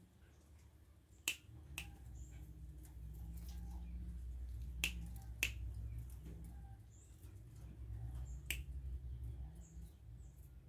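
A man's finger snaps, five sharp ones spaced irregularly a second to three seconds apart, made to coax a young spotted dove toward his hand. Under them runs a low, wavering hum.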